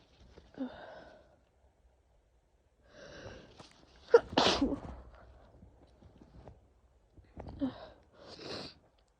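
A woman with a head cold sneezing: breathy sounds build up to one sharp, loud sneeze about four seconds in, with shorter breathy sounds after it.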